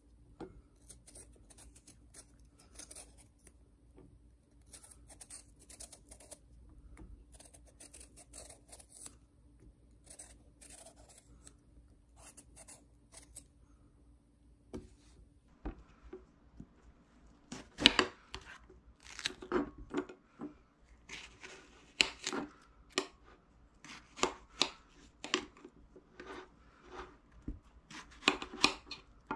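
A kitchen knife cutting and scraping a chamoe (Korean melon) on a ceramic plate: sharp, irregular cuts about one or two a second, starting about halfway through. The first half holds only faint high clicks.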